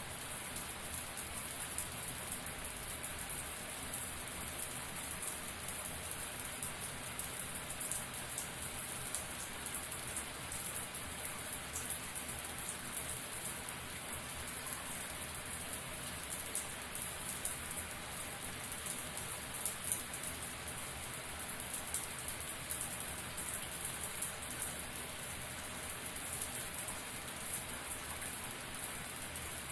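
Shower running steadily: a dense spray of water drops splashing, with fine spattering.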